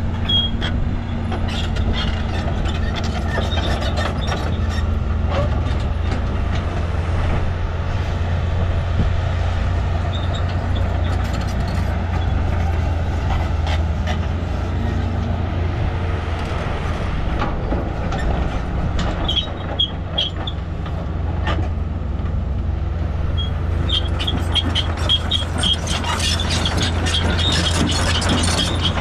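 Caterpillar 320-series hydraulic excavator's diesel engine running steadily under load as it digs and swings, with scattered metallic clanks and high squeaks that come more often near the end.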